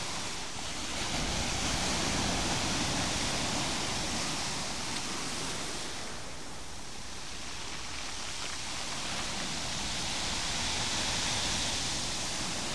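Sea waves breaking and washing over a rocky, pebbly shore: a continuous rush of surf that swells about a second in, eases midway and swells again near the end.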